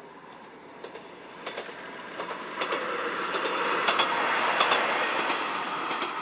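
Kantō Railway Kiha 100-series diesel railcar running past, growing louder to a peak about four to five seconds in, with its wheels clicking over the rail joints.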